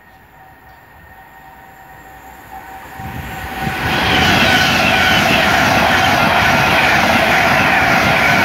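Pendolino high-speed electric train approaching and then passing at speed: the rush of wheels on rail and air grows from faint to loud over the first four seconds, then holds steady as the carriages go by, with a steady high tone running through it.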